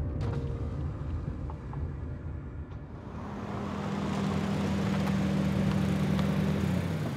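A car's engine and tyres as it drives up: a low rumble, then a steady engine hum and road noise that grow louder, with the engine note dropping near the end as the car slows.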